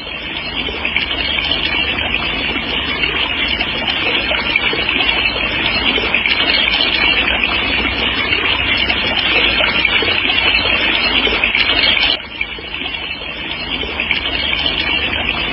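Steady rushing wash of sea surf on a beach. It dips suddenly about twelve seconds in, then builds back up.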